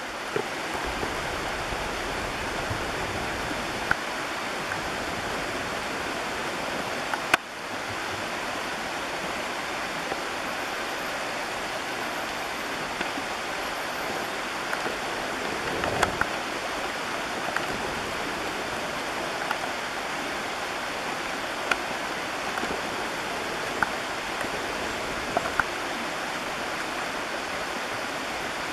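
Shallow creek water running steadily over riffles, an even rush, with a few brief sharp ticks scattered through it.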